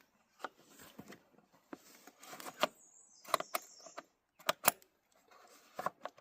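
Scattered light clicks and knocks, about eight of them, with a brief rustle a little past the middle: the Sportster's oil-tank dipstick cap being handled, pulled and reseated during an oil-level check.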